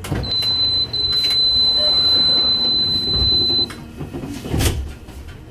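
Door-closing warning beep on board a Heuliez GX337 electric bus: one steady high tone held for about three and a half seconds, then a single thump about a second after it stops.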